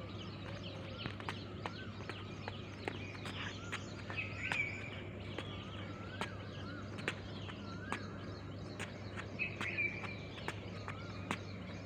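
Birds chirping: a short wavering call repeats every second or so, and a louder warbling call comes about four seconds in and again near ten seconds. Underneath runs a steady low hum, with scattered sharp clicks throughout.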